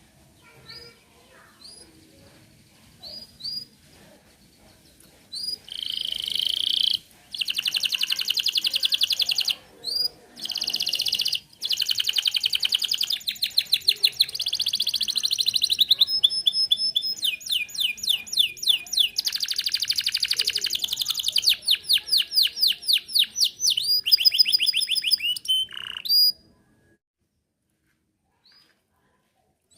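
Domestic canary singing: a few scattered high chirps, then a long unbroken song of fast trills and rolled runs of repeated notes that switch pattern every second or two, stopping abruptly near the end.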